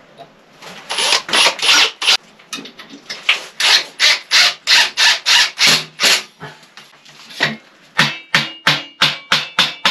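Tool work on a metal shelf bracket against a concrete-block wall: a run of rasping strokes, about two to three a second, then from about 8 seconds in quick hammer blows on metal, about four a second, with a faint metallic ring.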